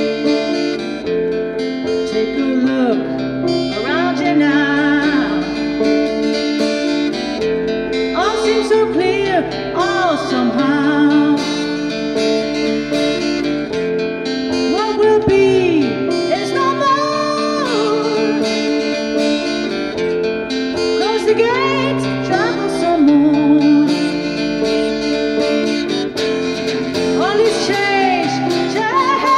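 Live band music: acoustic guitar and keyboard chords, with a melody line of bending, gliding notes over them.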